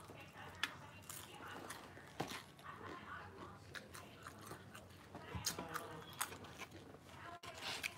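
A person chewing crispy Popeyes fried chicken up close, with scattered sharp crunches and wet mouth clicks; the loudest crunch comes about half a second in.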